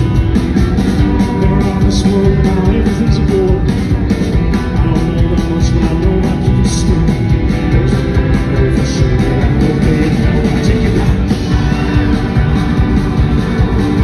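Live country-rock band playing loudly: electric guitars, bass and drums with steady cymbal hits.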